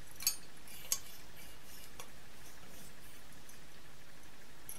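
Light clicks from a hand handling a metal curtain pole and its nylon-lined ring: two sharp ones within the first second and a fainter one about two seconds in. Otherwise only a steady faint hiss.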